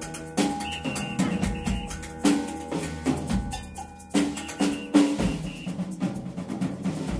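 Live samba played by a jazz band, with the drum kit to the fore: busy snare and bass-drum strokes over sustained guitar, piano and bass.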